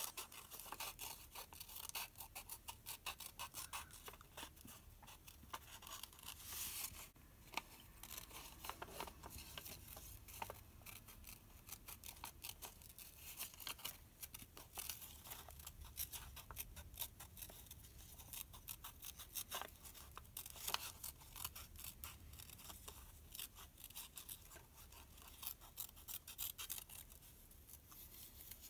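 Scissors cutting a bird shape out of a book page: a long, irregular run of short, crisp snips through the paper.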